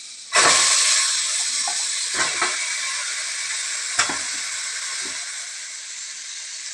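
Raw mutton pieces hitting hot melted butter in a pressure cooker, bursting into a loud sizzle about half a second in that slowly dies down, with a few light knocks as the pieces settle.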